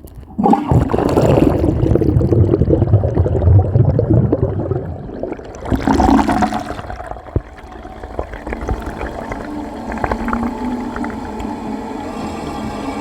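Toilet flushing, heard from underwater in the bowl: a sudden rush of churning water about half a second in, a second surge around six seconds, then a steadier, quieter rush of water as the bowl refills.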